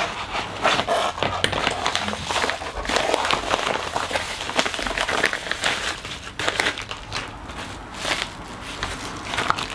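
A white plastic mailer bag crinkling and crackling as it is handled and opened by hand.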